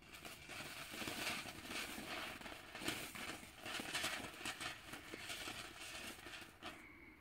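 Small category F1 gold fountain firework (Weco Flitze Feuerstein) hissing as it sprays sparks and green and red stars, with many fast crackles through the spray. The spray dies down about six and a half seconds in.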